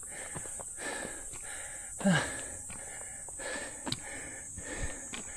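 A hiker breathing hard after a climb, in quick noisy breaths about every half second, with a short low grunt about two seconds in.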